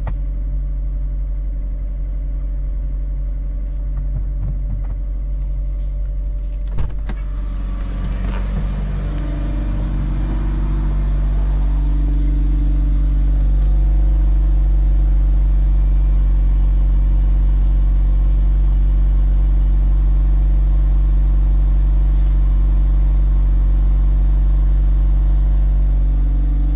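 2006 Mitsubishi Lancer Evolution's turbocharged 2.0-litre four-cylinder idling steadily after a cold start, heard first from inside the cabin and then louder from beside the exhaust at the rear of the car. A single sharp knock about seven seconds in.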